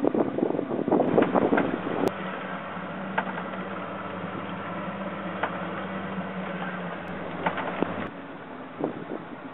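Boat engine running steadily, with wind buffeting the microphone over the first couple of seconds. A sharp click comes about two seconds in, and the low engine hum drops off near the end.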